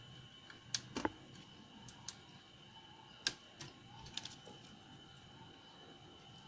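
A handful of small, sharp plastic clicks and taps as wire harness connectors and a flat ribbon cable are handled and fitted onto an LCD TV's main board, the loudest about three seconds in.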